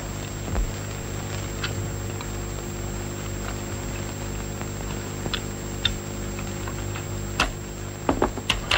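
Steady mains hum and hiss of an old film soundtrack, with a few light clicks scattered through and several sharper clicks in quick succession near the end.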